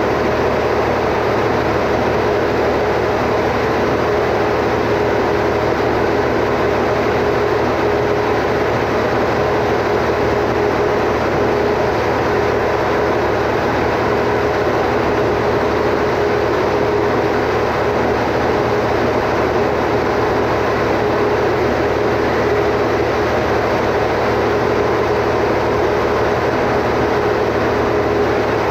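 Standby generator engine running steadily at constant speed, a loud, even drone with one unchanging hum.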